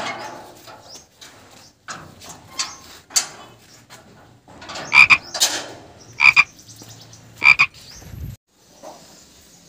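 Steel gate being unlatched and pushed open: metallic clicks and clanks of the bolt and frame, then three loud, short ringing squeaks about a second apart, before the sound stops abruptly.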